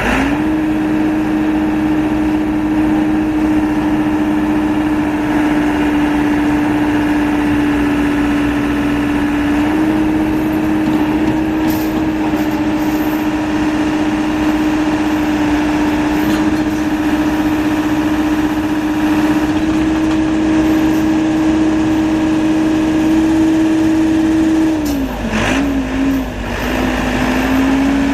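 Caterpillar 426C backhoe loader's diesel engine revving up and then running steadily at raised speed. About 25 seconds in, its pitch dips and wavers briefly, then climbs back up.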